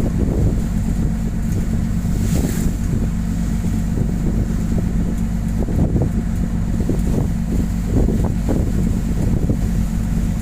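Storm-force wind gusts buffeting the microphone in heavy rumbling bursts, with a boat's engine running steadily underneath. The sound cuts off suddenly at the end.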